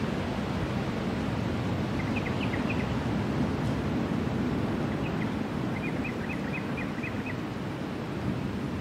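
Steady rush of ocean surf and wind. A small bird chirps a quick run of short high notes about two seconds in and again about six seconds in.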